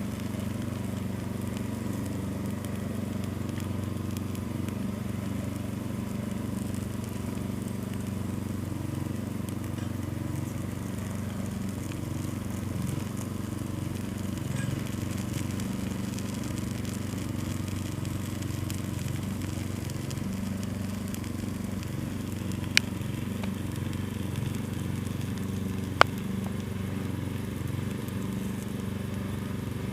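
Pile of old prawn crackers burning as a small open fire: a steady low rumble, with two sharp pops about three seconds apart near the end.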